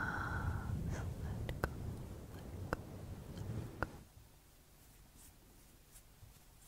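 Fingertips rubbing and scratching a furry microphone windscreen, a close, low rustling rumble with a few sharp clicks. About four seconds in it drops to faint, light brushing.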